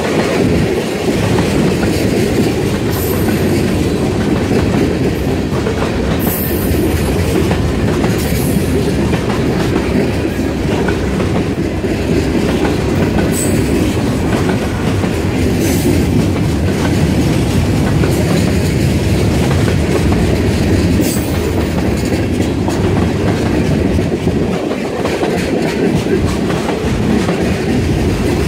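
Freight cars of a long train rolling past close by: a loud, steady rumble and rattle of wheels on the rails, with brief high wheel squeals about half a dozen times.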